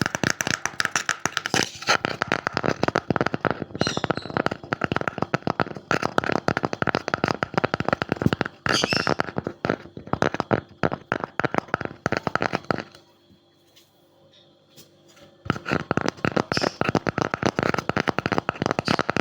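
Rapid fingertip and nail tapping on a wooden object, many crisp taps a second. The tapping stops for about two seconds a little past the middle, then starts again.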